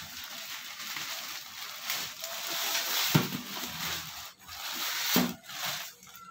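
Plastic shipping wrap and a plastic bag rustling and crinkling as they are pulled and torn off a cardboard box. There are two dull knocks from the box being handled, about three and five seconds in.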